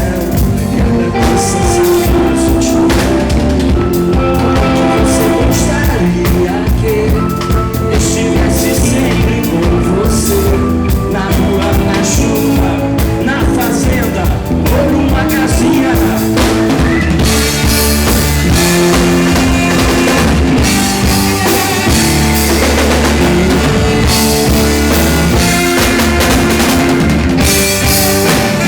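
Live rock band music: drum kit, bass and guitar playing steadily through an instrumental passage.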